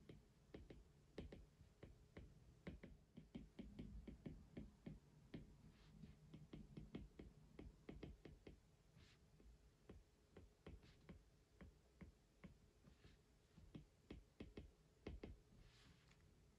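Soft, quick taps and clicks at an irregular pace, like hands working at a desk, with a few brief brushing sounds.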